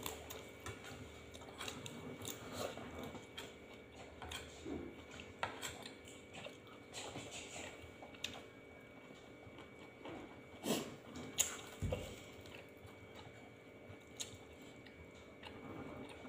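People chewing and biting food at a table, with scattered sharp clicks and taps of dishes and utensils; several louder clicks come close together about ten to twelve seconds in.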